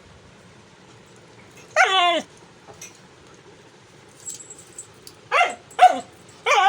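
Dog vocalizing: one high, falling whine about two seconds in, then three short yelps near the end.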